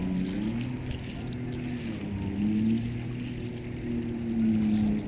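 Motorboat engine running under way, its pitch rising and shifting as the throttle changes, with water rushing past the hull.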